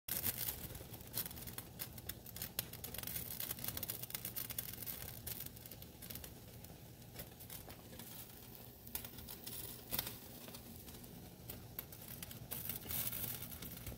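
A covered pot of water with sorrel and spices at a rolling boil under a glass lid: steady bubbling with many small irregular crackles, over a faint steady low hum.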